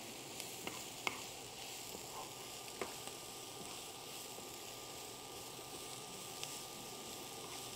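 Shredded cabbage frying in oil in a skillet, sizzling faintly as it is stirred with a wooden spatula, with a few light taps of the spatula on the pan.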